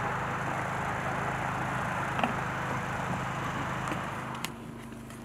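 A motor running steadily, with a rushing noise over a low hum and a few faint clicks; about four and a half seconds in it drops off sharply to a quieter, different low hum.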